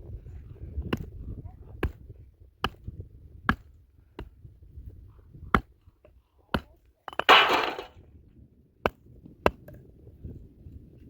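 A series of sharp single knocks, like chopping, irregularly spaced about a second apart, with a brief noisy rush about seven seconds in.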